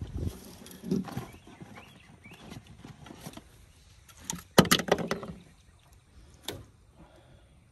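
Knocks and rattles of a netted spotted gar and the landing net against an aluminium boat deck as the fish is held down for unhooking, with a burst of loud knocks about four and a half seconds in and a single knock about two seconds later.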